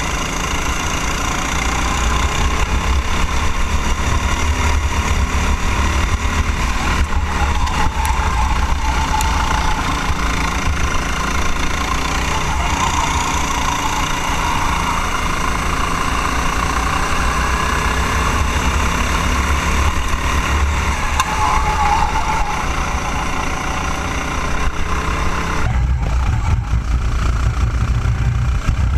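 Rental kart engine running hard under race load, its pitch rising and falling as the driver accelerates and lifts through the corners. About 26 s in, the sound turns duller and lower.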